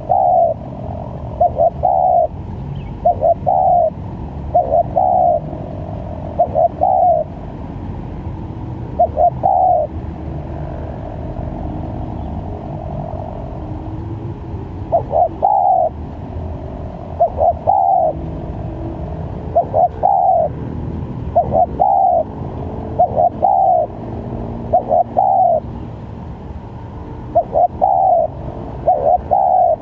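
Spotted dove cooing: short coo phrases, mostly in quick pairs, repeated every second or two, with a pause of several seconds near the middle. A steady low rumble runs underneath.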